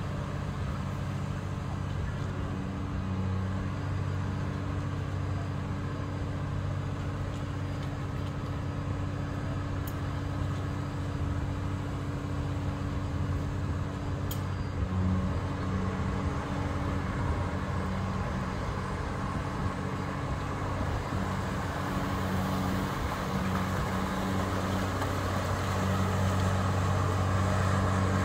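Diesel engine of a barge-mounted dredging excavator running with a steady low hum, working harder and growing louder near the end as the arm lifts the bucket out of the water.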